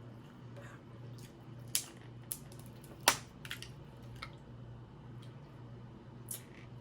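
Snow crab shells cracking and snapping as they are broken open and eaten: a handful of sharp cracks and clicks, the loudest about three seconds in, over a steady low hum.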